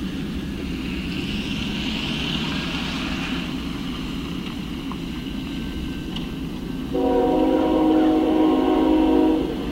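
Approaching freight train's diesel locomotives rumbling steadily. About seven seconds in, the lead locomotive's air horn sounds, a loud chord of several notes held about two seconds, then breaks briefly and sounds again at the end: a horn signal for the grade crossing.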